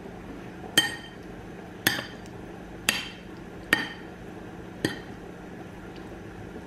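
A metal spoon clinking against a white ceramic bowl while spiced raw chicken is mixed: five sharp, ringing clinks about a second apart, over a steady low hum.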